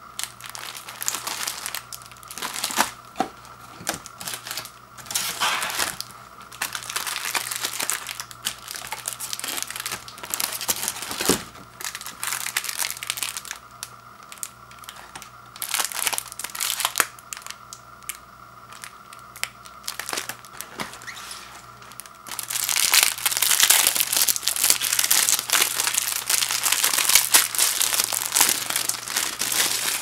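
Clear plastic overwrap on a pack of paper microwave popcorn bags crinkling in bouts as it is handled and opened. The crinkling is loudest and most continuous over the last several seconds, as the wrapper comes off the bags.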